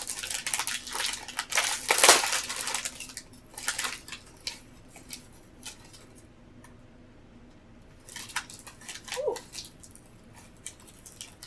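Plastic cookie packaging crinkling and tearing as a package of Oreo Thins is opened, dense and loudest about two seconds in, then quieter scattered rustles and clicks.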